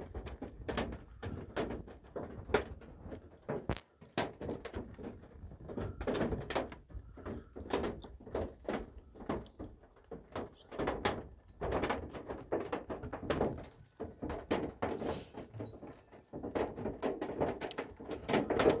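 Small hail and rain tapping irregularly on a van's roof and windshield, heard from inside the cabin as a scatter of sharp knocks, several a second. It comes thicker in spells about twelve seconds in and near the end.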